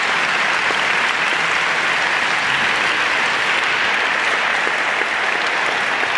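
An audience applauding steadily, a dense, even clapping from many hands.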